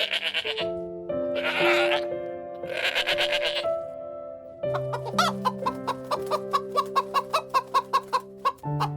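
Chicken clucking over soft background music with long held notes: two longer, harsher cackling bursts in the first half, then a steady run of short, evenly spaced clucks.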